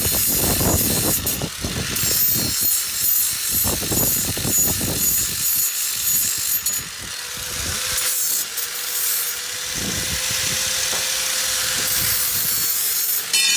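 Steel lawn mower blade being sharpened at its cutting edge: harsh metal-on-metal rasping in repeated strokes. It stops about seven seconds in, then comes back briefly twice.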